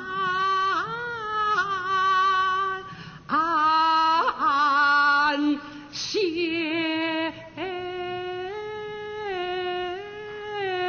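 A Kunqu opera singer's high solo voice singing a slow line in several phrases: long held notes with wide vibrato, with some phrases sliding up into their first note.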